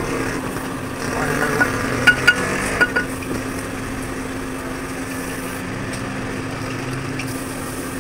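Steel parts of a truck differential clinking together as they are handled, about four short ringing clinks around two seconds in, over a steady engine-like mechanical hum.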